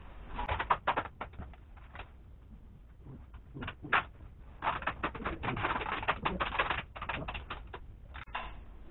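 Plastic garbage bags crinkling and crackling in quick irregular bursts as a bin-bag suit is handled and shifted, busiest in the second half.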